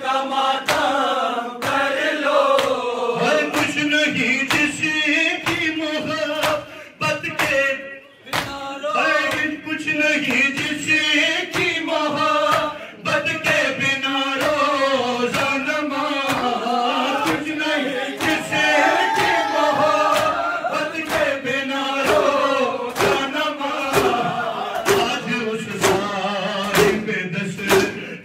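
Amplified male voice chanting a Shia noha through a microphone and speaker, joined by a crowd of men chanting along, over a steady rhythm of sharp hand slaps on chests (matam).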